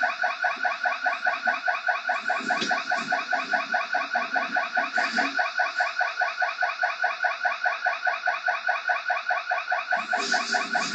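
Electronic security alarm sounding continuously, a pulsing tone repeating about five times a second. A few faint knocks and rustles under it, around a third and halfway through and again near the end.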